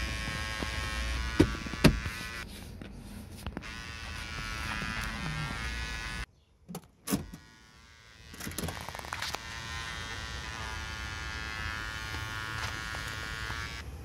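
A steady electrical buzz with a whine, like a small electric motor or electronic interference. It cuts out for about two seconds midway, with two sharp clicks in the gap, then resumes.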